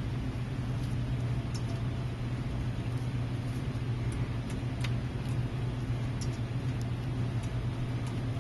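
Steady low electrical hum of a workbench setup, with a few faint light ticks as a soldering iron tip is worked over the pins of an iPad mini IC chip.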